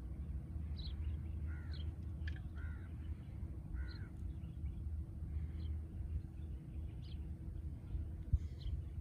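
A bird calling in three short calls in the first half, with fainter, higher calls scattered through, over a steady low rumble.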